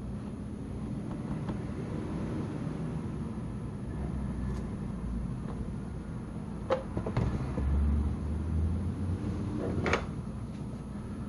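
Handling noises over a low steady rumble: a few sharp clicks and knocks, the loudest near the end.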